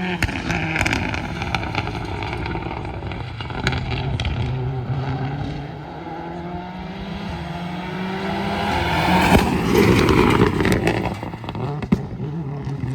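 Rally car engine running hard, its note climbing and dropping with throttle and gear changes, with a few sharp cracks. It swells to its loudest about ten seconds in.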